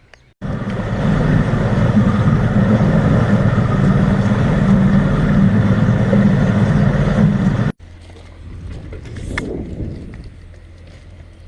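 An engine running steadily for about seven seconds, starting and stopping abruptly, then a quieter steady rumble.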